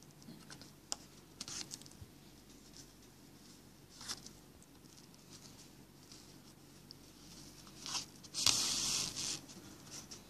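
Hand basting with needle and thread on fabric: faint scratches and rustles as the needle goes through the cloth, then a louder rasp of about a second and a half, about eight seconds in, as thread is drawn through and the fabric is handled.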